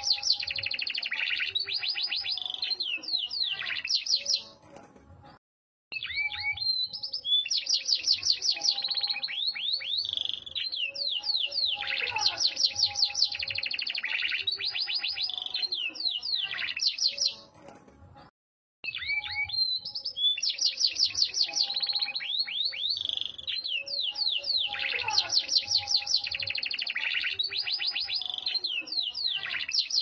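Yorkshire canary singing: long phrases of fast trills and rapid repeated notes, broken by two short silent pauses, about five seconds in and again about eighteen seconds in.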